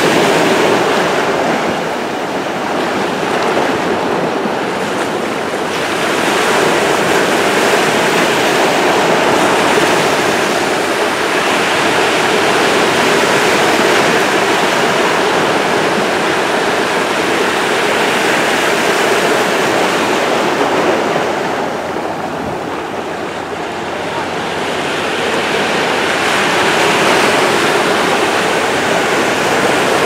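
Ocean surf: waves breaking on the shore and foaming around a rock, a continuous rushing that swells as waves break and eases in two lulls, a few seconds in and again about two-thirds of the way through.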